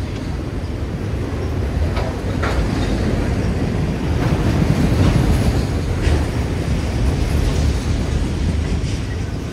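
CN intermodal freight train's cars rolling past: a steady rumble with irregular clacks of wheels over rail joints, loudest about five seconds in.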